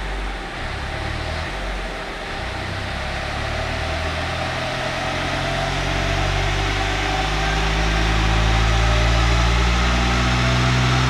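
Vauxhall Vectra 1.9 CDTI four-cylinder turbo-diesel, hybrid turbo and no catalytic converters, pulling under load on a rolling road. The engine note climbs slowly in pitch and gets steadily louder as the revs build through the run, over a constant noisy rush from the rollers and turbo.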